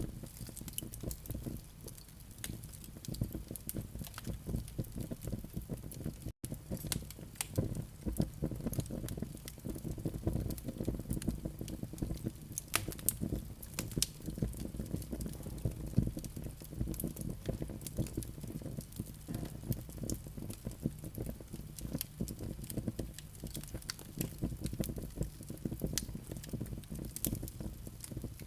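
Fireplace fire of glowing live coals crackling: a dense, irregular stream of small crackles and pops over a steady low rumble, with a momentary dropout about six seconds in.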